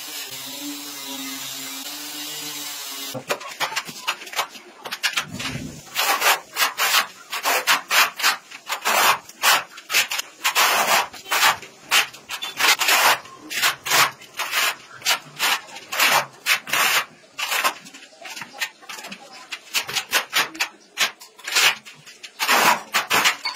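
Repeated rough scraping strokes of a hand tool on a hard surface, about one or two a second, uneven in spacing and strength. A steady low hum comes first, for about three seconds.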